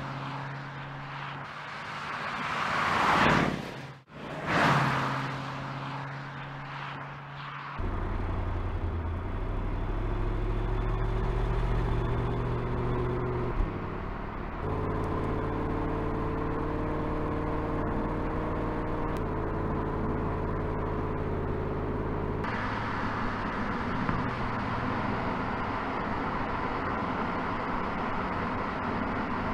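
2017 Porsche Panamera engine and exhaust. The car rushes past twice, loudest about three and five seconds in, then from about eight seconds on there is a steady engine drone at an even pitch, which jumps in pitch at a few cuts.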